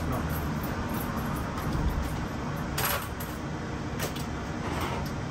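A few short sharp clicks in a bus cab as the driver's-seat controls are worked, over a steady low rumble; no engine cranks or starts, a sign of the flat house/starter battery.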